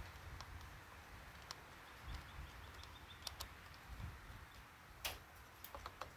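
Faint, scattered clicks and light taps of a hand tool and small parts being handled while a chainsaw is taken apart, with one sharper click about five seconds in.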